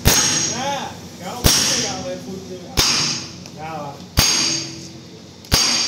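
Hammer striking steel parts of a tank road wheel assembly: five hard, evenly spaced blows about a second and a half apart, each leaving a metallic ring.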